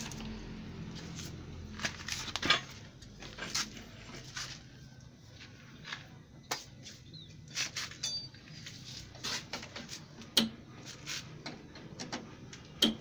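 Irregular metallic clinks and knocks of hand tools and parts being handled during motorcycle clutch plate work, over a faint low hum. The sharpest knocks come about two and a half seconds in and near the end.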